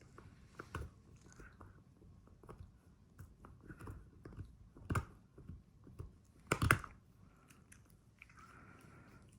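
A dog chewing a treat, with irregular crunches and two louder crunches about halfway through.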